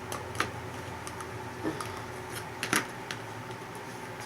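A few light clicks and taps of plastic Play-Doh toy tools being handled on a table, the loudest a little under three seconds in, over a steady faint background hum.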